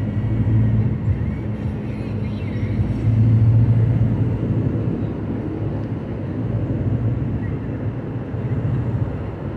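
Car driving on a highway: a steady low hum of engine and road noise that swells a little a few seconds in.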